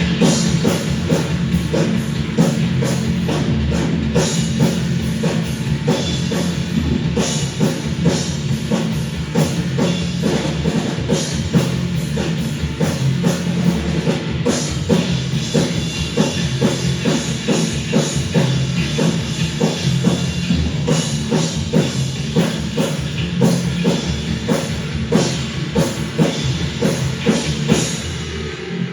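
Live rock band playing an instrumental passage: a drum kit keeps a steady, driving beat under loud sustained bass and guitar.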